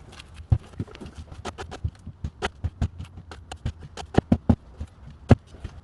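A hand digging tool striking packed dirt and stones in a fence post hole, deepening it: an irregular run of sharp knocks, about three to five a second, several of them louder near the end.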